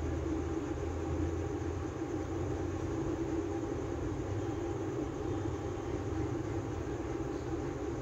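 Steady low background hum and rumble, unchanging throughout, with no distinct clicks or knocks.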